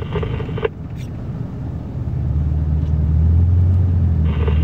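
Ford F350 pickup's engine and drivetrain rumbling from inside the cab while driving in 4WD through snow, growing louder about two seconds in. A click from the two-way radio about a second in, and its hiss coming back near the end.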